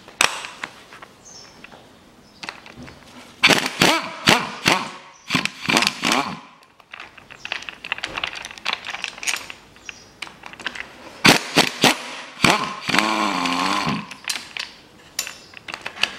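Socket wrench on a long extension undoing the bolts of a Mitsubishi 4B10 engine's upper oil pan, with bursts of ratchet clicking and metallic rattling. A short steady whirring comes about 13 seconds in.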